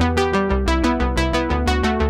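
Background music: a synthesizer keyboard with an electric-piano sound playing quick, evenly spaced notes, about six a second, over a steady low bass.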